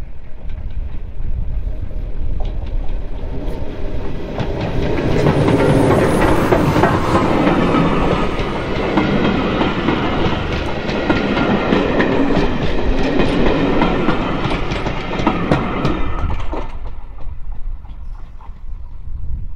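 Steam train hauled by Bulleid Pacific 34053 Sir Keith Park passing close by, its wheels clicking rapidly over the rail joints. The sound builds about four seconds in, stays loud, then falls away sharply near the end.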